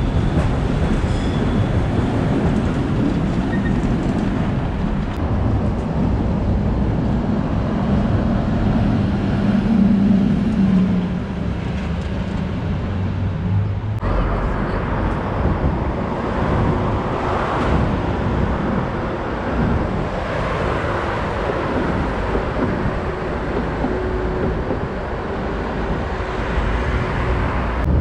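Modern low-floor tram running past close by, a low rumble with a motor hum that swells about ten seconds in. After a sudden cut comes city street traffic: cars and trams passing at a junction.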